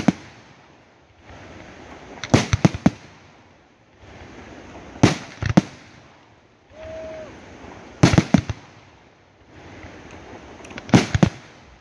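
Aerial firework shells bursting in a steady sequence: a sharp bang or a quick cluster of two or three bangs about every three seconds, five times in all, with a crackling hiss between the bursts.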